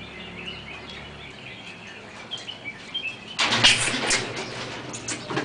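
Small birds chirping faintly, then about three and a half seconds in a loud burst of rustling, scuffling noise lasting a second or two.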